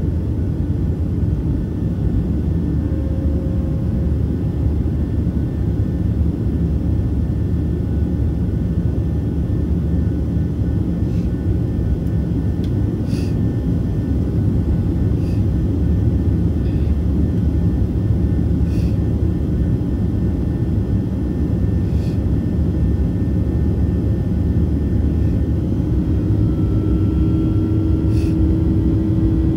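Cabin noise of a Boeing 737-700 in its initial climb just after liftoff, heard from a window seat over the wing. Its CFM56-7B24 turbofans at derated takeoff thrust and the rushing airflow give a steady, loud low rumble. A few faint ticks come through in the middle part, and a steady hum joins in near the end.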